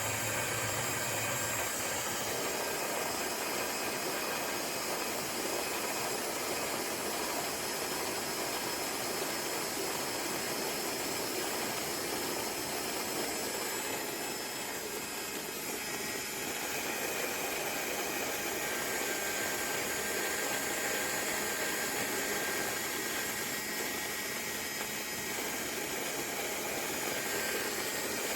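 Lamido small cordless electric conical burr coffee grinder running steadily, its motor giving an even whirring hiss.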